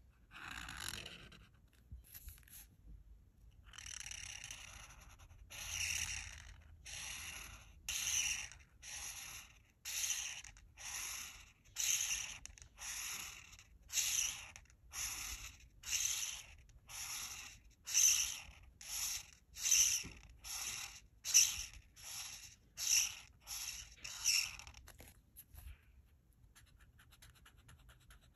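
Art marker tip scratching across paper in rapid back-and-forth strokes as an area is filled in with colour. The strokes come in a steady rhythm of about one and a half a second and stop a few seconds before the end.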